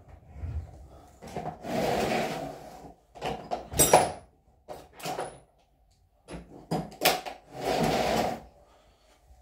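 Handling noises: two longer scraping or rustling stretches, one early and one near the end, with several sharp clicks and knocks in between.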